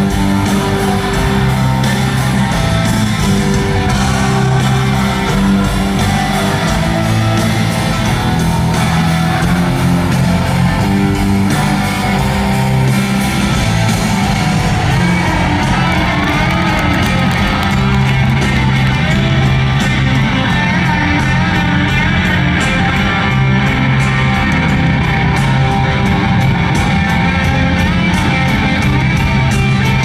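Live rock band playing, with guitars over a steady bass line, picked up from the stands of an arena.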